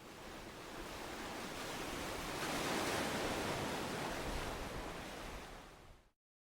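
A rushing, surf-like noise effect that swells to a peak about three seconds in, then fades and cuts off abruptly about six seconds in.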